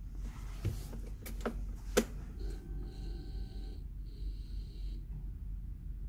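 A few sharp clicks of the Peugeot Metropolis scooter's key and switches, the loudest about two seconds in, as the ignition is switched on. A steady electrical tone follows in two parts, with a short break between them, while the instrument panel runs its power-on self-test.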